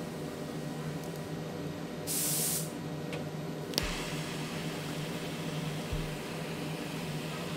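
Small handheld butane torch: a short burst of gas hiss about two seconds in, a sharp click near the middle as it lights, then a steady flame hiss as it is played over heat-shrink tubing on spliced wires.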